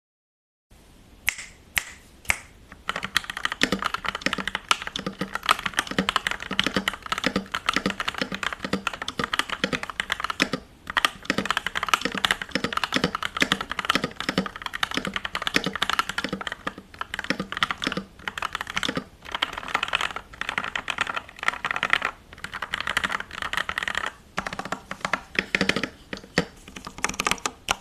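Typing on a stock Yunzii YZ75 mechanical keyboard with linear Gateron Pro Black switches and PBT keycaps: a few single keystrokes, then steady fast typing with a couple of short pauses.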